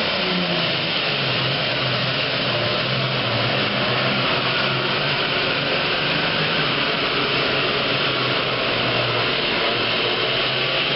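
Super Farm class pulling tractor's modified diesel engine running at full throttle under load as it pulls the weight sled: a steady, loud engine drone with heavy hiss.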